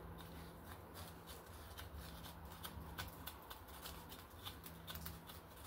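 Faint, irregular clicking and scraping as a thin metal pointing tool pushes a stainless steel Helifix helical bar back into a resin-filled mortar bed joint in brickwork.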